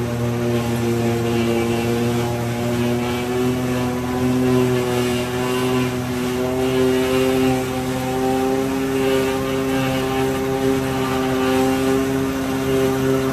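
Engine-driven New Holland 717 forage chopper running steadily as it chops standing corn: one even, pitched engine drone.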